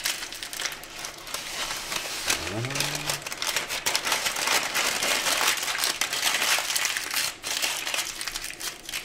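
Baking parchment paper crinkling and crumpling as it is folded and twisted by hand to seal a fish papillote, a continuous rustle of crackles.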